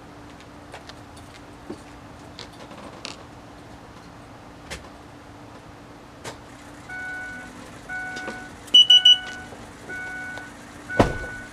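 Electronic warning beeper on a paratransit bus sounding a steady repeating beep, about one a second, starting about halfway through. Near nine seconds a shrill high beep pulses three times over it, and a single loud thump comes near the end.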